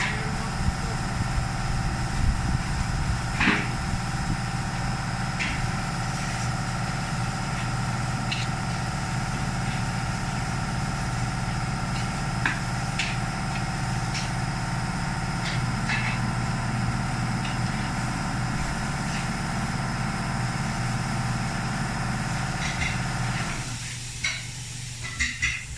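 Steady machine hum in a tire shop, with scattered metallic clicks and knocks of tire work. The hum cuts out suddenly near the end, leaving a few clicks.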